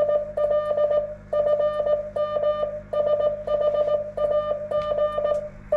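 Morse code (CW) tone from an amateur HF radio station: a single steady beep keyed on and off in quick dots and dashes, with brief pauses between groups.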